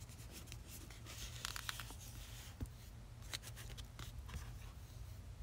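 Quiet room tone: a steady low hum with a few faint clicks and soft rustles scattered through it.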